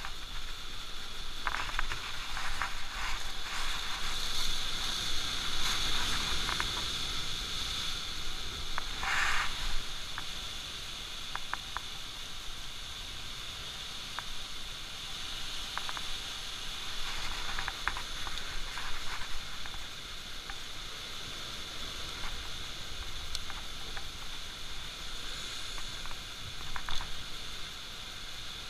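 Steady outdoor hiss, louder for the first several seconds, with scattered light clicks and rustles from hands handling a small fishing hook, bait and scissors.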